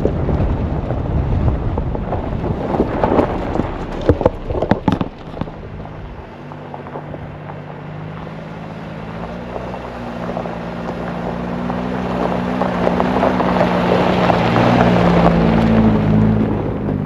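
Wind buffeting the microphone with a few sharp knocks, then an off-road truck's engine running steadily and growing louder for about ten seconds before dropping off at the end.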